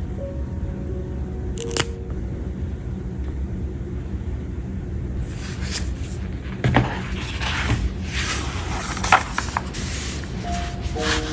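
A paper notebook set down on a desk and opened: from about five seconds in, paper rustling and sliding as the pages are opened and smoothed flat, with a soft thump and a few sharp taps. A single sharp click comes about two seconds in, and soft background music plays near the start and end.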